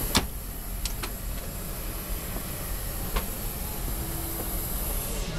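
Steady airliner cabin noise, a low rumble and hiss from the ventilation and aircraft systems, with a few sharp clicks, the strongest about a fifth of a second in and others near one second and three seconds in.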